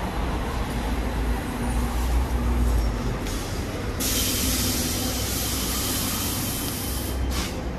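Street traffic rumbling steadily, with a loud hiss that starts suddenly about four seconds in, lasts about three seconds and cuts off sharply.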